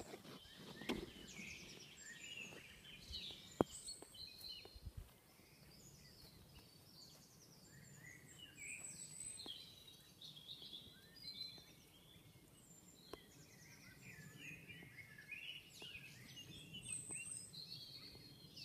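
Faint birdsong: several small birds chirping and twittering in short, scattered calls. There is some low rumble of handling or wind on the microphone in the first few seconds and a couple of sharp clicks.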